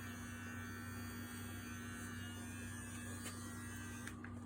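Manscaped Lawn Mower 3.0 electric trimmer motor running with a steady low hum. A fainter, higher whine stops about four seconds in.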